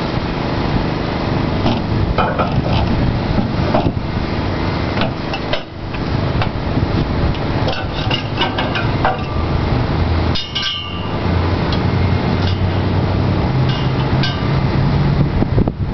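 Steel parts of a truck receiver-hitch crane clanking and clinking again and again as the mast is fitted and pinned into the pickup's hitch receiver, over a steady low hum.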